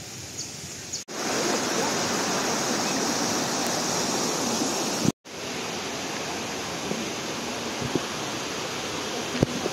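Rushing water from a rocky mountain stream and its small falls, a steady hiss of water noise. It starts abruptly about a second in, drops out briefly a little past halfway, then carries on slightly quieter.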